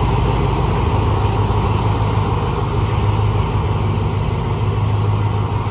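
Alstom diesel locomotive engine idling steadily with an even low hum.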